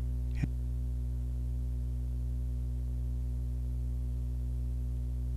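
Steady low electrical hum with several even overtones, unchanging throughout, with one short click about half a second in.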